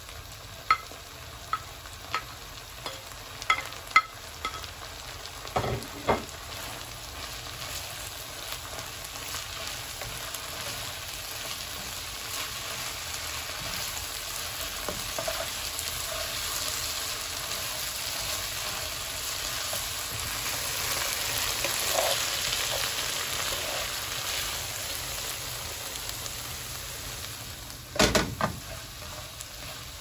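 Sliced mushrooms scraped off a plate into a hot nonstick pan of onions, with a run of sharp taps in the first few seconds. Then frying with a steady sizzle that grows louder as they are stirred with a spatula, and a couple of loud knocks near the end.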